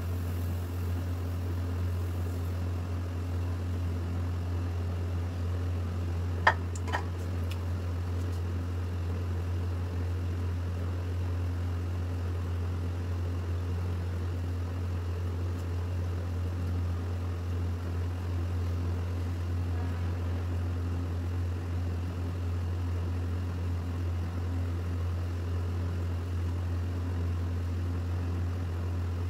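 Steady low mechanical hum, as of a motor running, with two sharp clicks close together about six and a half seconds in.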